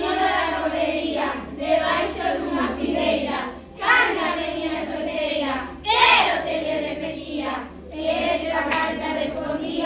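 A group of children singing together: held, sung phrases with short breaks between them.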